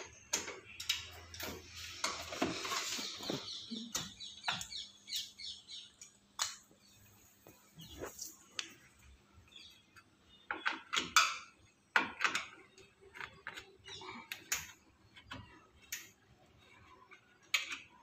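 Screws being undone with a screwdriver from the back of an IFB front-load washing machine's top cover: a few seconds of scraping near the start, then scattered clicks and knocks of the tool, screws and sheet-metal cover being handled.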